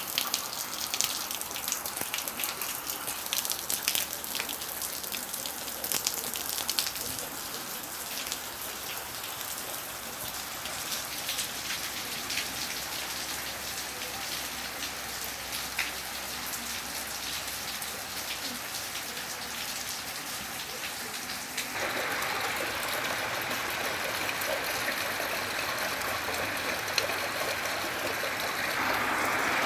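Gentle, steady rain, with individual drops ticking over a soft hiss. About three-quarters of the way through it abruptly changes to a louder, denser rush of rain.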